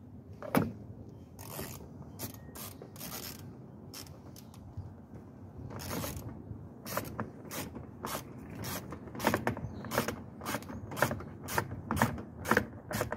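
Hand ratchet with a 10 mm socket driving door-panel screws back in. There is one sharp click about half a second in, then from midway a steady run of ratchet clicks, two to three a second.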